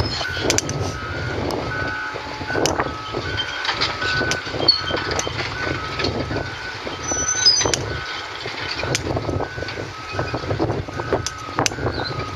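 Heavy equipment's reversing alarm beeping at a steady regular pace over a running engine, with scattered knocks and clanks.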